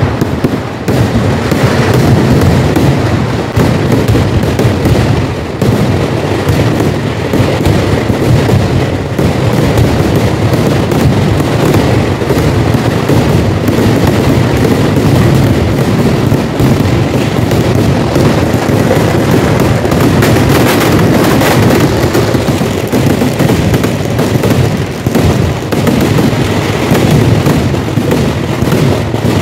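Kerala temple-festival fireworks (vedikkettu) in a massed barrage: aerial shells and crackers going off in a dense, unbroken run of overlapping bangs and crackles, very loud with no pause.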